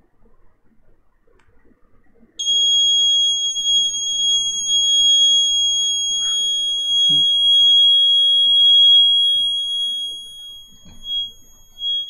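Arduino fire alarm's piezo buzzer sounding one steady high-pitched tone, switched on when the flame sensor detects a lit matchstick. It starts suddenly about two seconds in, drops away near the end, then comes back.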